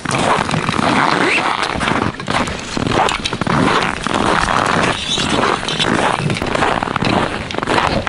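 Footsteps crunching through snow at a walking pace, with rustling and scraping of clothing and gear.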